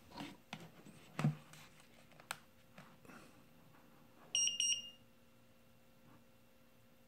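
Lumos smart bike helmet's built-in beeper giving a quick run of about three high beeps, about four seconds in, as its button is pressed to switch it on. Before that, a few light knocks of the helmet being handled on the table.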